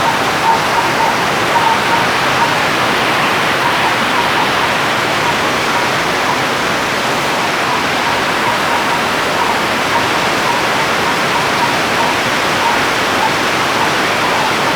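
Steady heavy rain, a dense even hiss with no let-up, with faint short plinks scattered through it.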